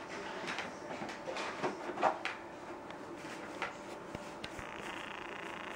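Seven-week-old Maine Coon kittens playing around a plastic ball-track cat toy with a cardboard scratch pad: scattered scratches, scuffles and light knocks, the loudest about two seconds in.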